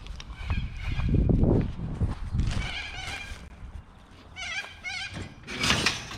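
Birds calling several times in short, wavering calls, after a low rumble in the first couple of seconds.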